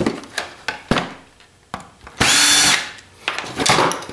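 A cordless drill-driver whirs in one short burst of about half a second, a little past two seconds in. Sharp clicks and knocks from handling parts come before and after it.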